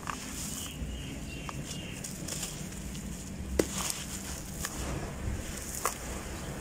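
Dry, gritty crumbs of crumbled grey 'biscuits' pouring from the hands and rustling as fingers rake through a bucketful, with a few sharp crunches as bigger lumps fall or crush. The loudest crunch comes about three and a half seconds in.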